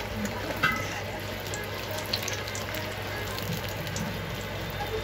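Chicken samosas frying in hot oil in a kadai give a steady sizzle as they are lifted out with a wire skimmer; they are fried golden brown. There is a brief click about half a second in.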